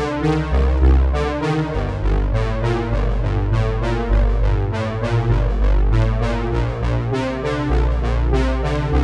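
Background music: synthesizer and electric-piano keyboard notes over a heavy bass line, with a steady beat.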